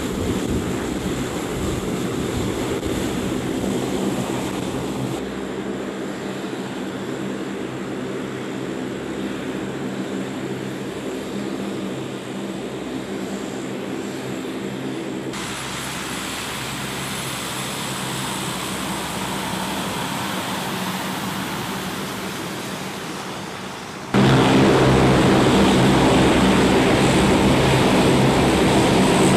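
Four-engine C-130-type turboprop running, a steady propeller and engine drone with several steady tones. It jumps much louder about three-quarters of the way through, as the aircraft moves along the runway.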